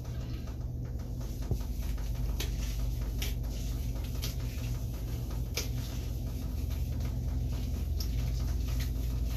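Shower water running and splashing while conditioner is rinsed out of hair by hand, with scattered sharp pats and drips over the steady spray.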